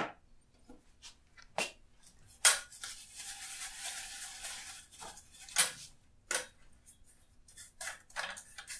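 Oil-painting brush working on a stretched canvas: a few short sharp strokes and taps, with a longer scrubbing stretch from about two and a half to five seconds in.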